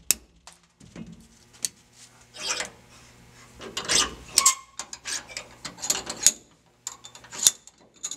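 Metal-on-metal clicks and scrapes from a Uintah Precision UPR rifle bolt being worked with a punch: the rear roll pin driven out and the firing pin slid from the bolt. Several sharp clicks come among rasping scrapes.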